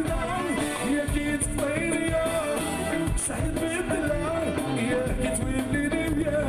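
A man singing live into a microphone, backed by a band of drums, guitars, violin and keyboards.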